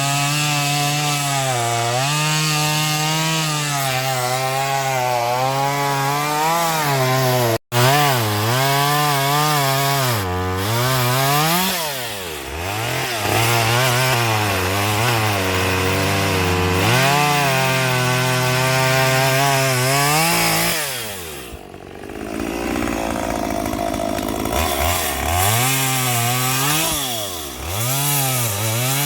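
Chainsaw cutting a log, its engine pitch rising and falling as it bogs down in the wood and revs back up. It cuts out for an instant about a quarter of the way in and dips for a moment about two-thirds of the way through.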